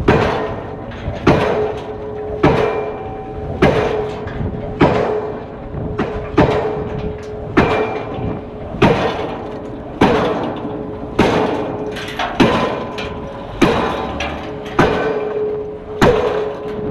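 Diesel pile hammer striking a steel H-beam batter pile, one blow about every 1.2 seconds, with a steady ringing tone carrying between the blows.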